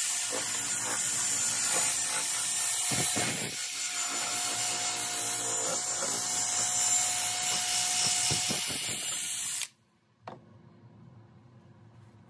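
Drill spinning a foam polishing pad against a plastic lightbar lens, a steady whirring with a scuffing hiss as the pad is worked over the lens. It cuts off abruptly about ten seconds in.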